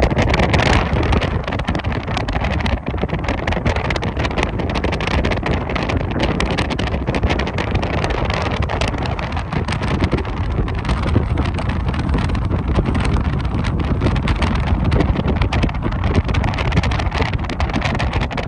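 Steady rumble of a vehicle in motion, with wind buffeting the microphone and a faint steady whine above it.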